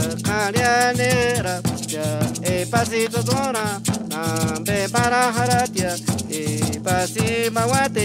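Folk band music: a ridged metal scraper (güira) scraped in a quick steady rhythm under a wavering, pitched melody line and a steady low drone.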